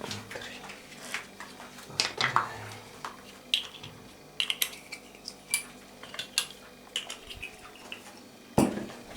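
Irregular clinks and clicks of hard objects being handled and set down, with one louder knock near the end.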